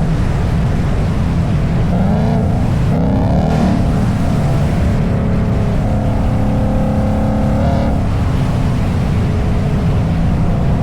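Ford Mustang GT's 5.0-litre V8 engine and exhaust while driving. The revs rise a couple of seconds in, hold steady and higher for a while, then fall away about eight seconds in as the throttle eases off.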